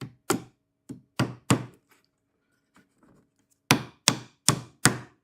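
Hammer driving a small nail into a wooden beehive frame: a few light taps, a pause of about two seconds, then a steady run of strikes, roughly three a second.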